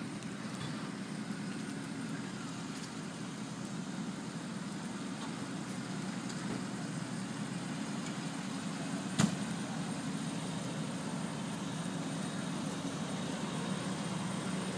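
Steady low rumble of fire engines idling on the street, with a single sharp click about nine seconds in.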